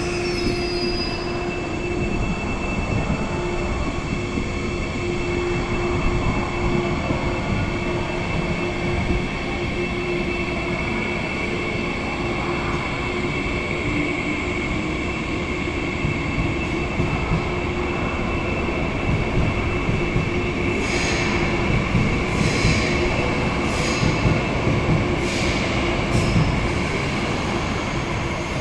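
CRH380D high-speed electric multiple unit pulling away from the station: a steady rumble carrying a low and a high steady tone. About two-thirds of the way through, several sharp clacks come roughly a second apart.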